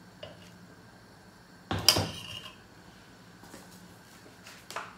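Metal kitchenware handling: a spoon and a tin of ghee knocking against a steel bowl and the table, with one sharp clack that rings briefly a little under two seconds in and a few light clinks around it.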